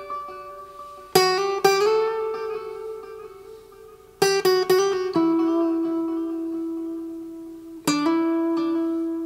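Acoustic guitar plucked in short phrases, each note left to ring out, with a delay effect repeating the notes. The echoes come from a ToneWood Amp, which vibrates the guitar's back so they sound from the guitar body itself.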